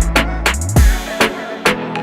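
Hip hop backing music with a heavy kick drum, deep bass and sharp percussion hits in a steady beat, between rapped lines.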